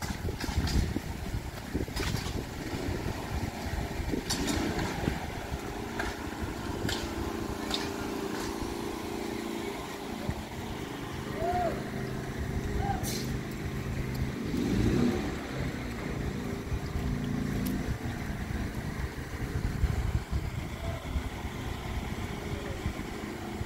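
Street ambience: a motor vehicle's engine hums steadily for much of the stretch, with wind buffeting the microphone.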